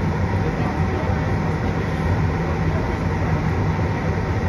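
Siemens C651 metro train running, heard inside the passenger car: a steady low rumble from the wheels and running gear, with faint constant whines above it.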